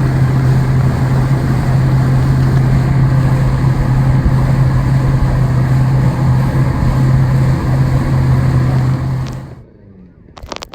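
Engine running at a steady speed, a loud low drone under heavy rushing noise, which cuts off abruptly near the end.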